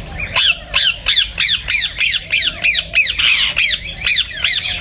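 Indian ringneck parakeet giving a fast run of harsh screeching calls, about four a second, each one falling in pitch.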